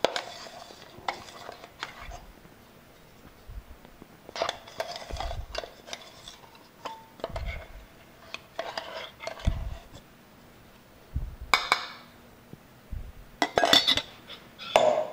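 Steel bowls and a metal spoon clinking and knocking against an aluminium kadhai and each other as ingredients are handled, in short scattered clusters with quiet gaps between.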